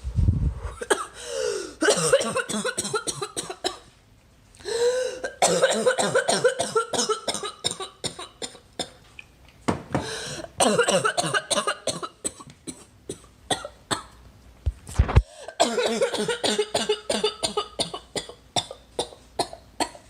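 A girl coughing in repeated fits: long runs of rapid coughs, with pitched, strained breaths drawn between them and short pauses about four seconds in and again past the middle.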